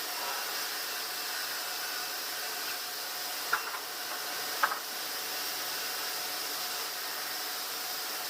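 Sawmill machinery running with a steady hiss and faint hum, with two sharp knocks about a second apart near the middle.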